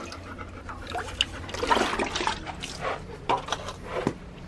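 Water sloshing and splashing as a stainless steel dog bowl is dipped into a plastic bucket of water and lifted out full.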